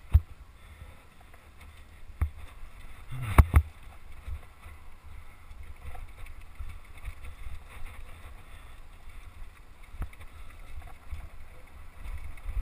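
Mountain bike riding down rocky singletrack: a steady rumble of wind on the microphone, with a few sharp knocks and rattles as the bike hits rocks. The loudest are a pair of knocks about three and a half seconds in.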